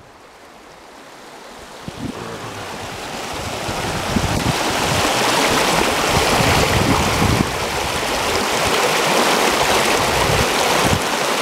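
Creek water rushing over rocks at a small waterfall, a steady noise that grows louder over the first five seconds or so and then holds.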